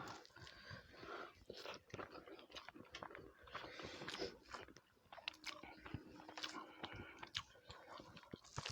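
Faint close-up chewing and mouth sounds of people eating a spicy curry-and-rice meal: irregular small clicks, lip smacks and soft crunches.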